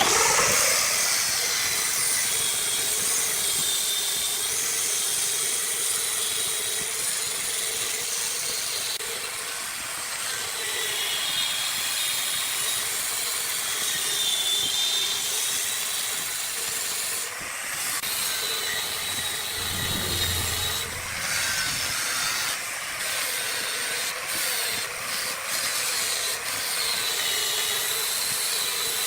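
Wood lathe running with a turning tool cutting the spinning wood: a steady hissing shear with a faint wavering high whine. Several brief clicks come in the second half.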